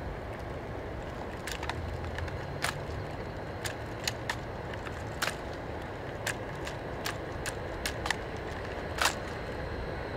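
Rifles being handled in an inspection-arms drill: about a dozen sharp clicks, clacks and hand slaps on wooden stocks and metal parts as a rifle is presented and passed between two people, the loudest about nine seconds in, over a steady outdoor background.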